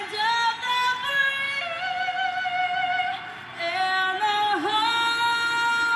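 Background music with a singing voice holding long notes that slide between pitches.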